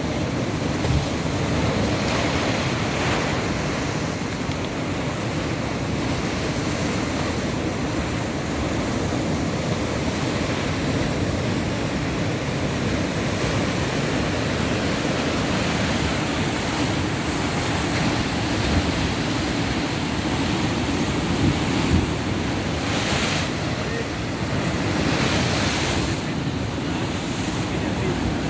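Rough sea with heavy surf breaking continuously, swelling louder a few times, with wind on the microphone.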